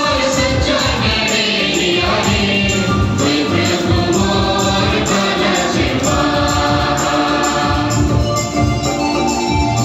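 Devotional music: a group of voices singing together over a steady drumbeat.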